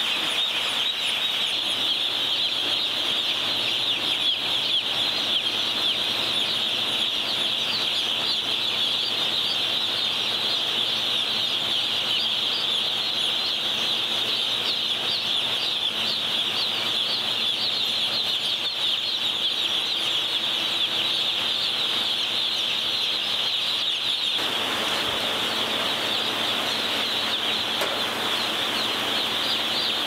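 Hundreds of day-old broiler chicks peeping all at once, a dense, unbroken chorus of high chirps.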